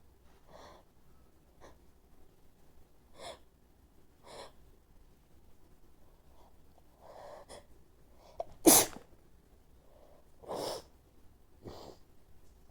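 A woman sneezing: a run of short, catching breaths building up, then one sharp, loud sneeze nearly nine seconds in, followed by two more breathy bursts.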